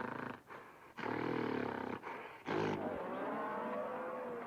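A series of animal-like calls: a short roar-like growl about a second in, a brief sharp cry, then thin whistling glides that rise and fall.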